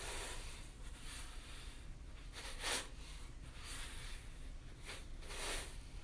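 Sugar grains being moved, a run of soft gritty swishes and rustles, two of them louder: one a little under three seconds in and one near the end.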